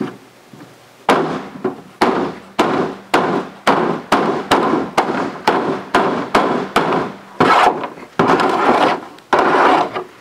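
A large knife chopping through mushrooms and striking the folding tabletop beneath, about two sharp chops a second after a first second of quiet.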